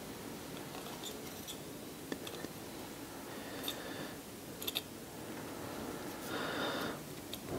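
Steel tweezers clicking and tapping against a pocket watch's balance cock and movement plate as the balance is worked into its pivots: a few small, sharp metal ticks spread out, including a quick cluster of three, with a short scrape of handling near the end.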